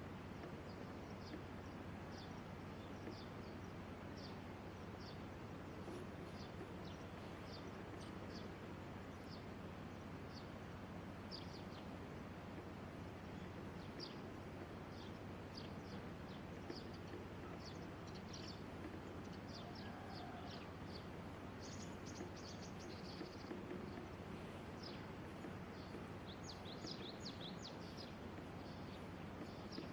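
Small birds chirping outdoors: short, high chirps every second or so, coming thicker in the last third, over a steady background hiss.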